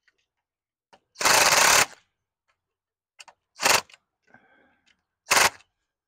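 Cordless power driver tightening screws into a wooden post: one longer run of under a second, then two short bursts a couple of seconds apart.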